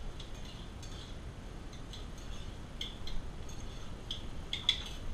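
Light metallic clinks of utensils and pans being handled at a commercial kitchen range: a handful of short, scattered clinks, two in quick succession near the end, over a steady low background hum.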